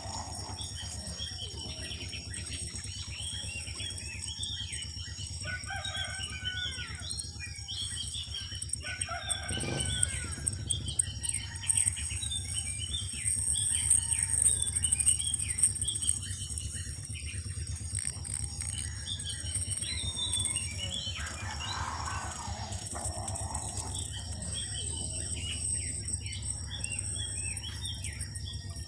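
Farmyard ambience: chickens clucking, a rooster crowing, and many small birds chirping. A steady high-pitched hum runs underneath.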